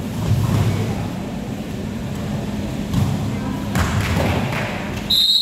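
Kabaddi tackle on the court mat: shouting voices and several thuds of bodies and feet. Near the end comes a sudden steady referee's whistle blast.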